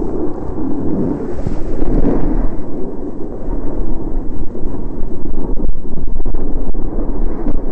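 Wind buffeting an action camera's microphone during a downhill run on snow, a loud, steady rumble, with a few faint clicks in the second half.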